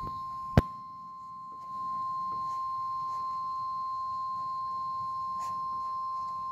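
Weather radio sounding its warning alarm tone, one steady high tone that opens a severe thunderstorm warning broadcast. A sharp click comes about half a second in, and the tone gets louder about two seconds in.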